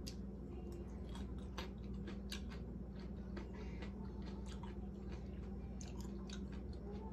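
Close-miked chewing of a chicken taco: wet, smacking mouth sounds with many short irregular clicks, over a steady low hum.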